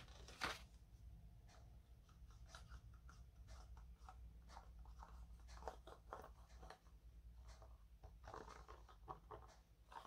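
Near silence: faint rustles and light taps of paper card being handled while a layer is glued down, with a denser patch of handling near the end, over a low steady hum.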